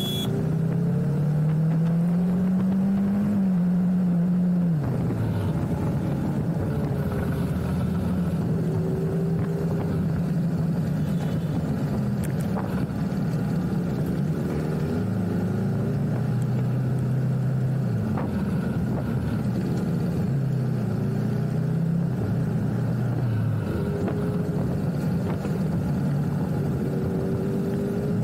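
BMW G310R's single-cylinder engine running under way, its pitch climbing and dropping in steps several times as the rider works the throttle and shifts gears, with a sharp fall about five seconds in.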